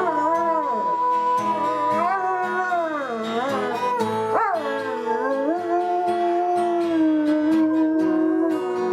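A dog howling along to music: a long wavering howl that slides up and down in pitch over held musical notes, with a sharp upward swoop about four and a half seconds in.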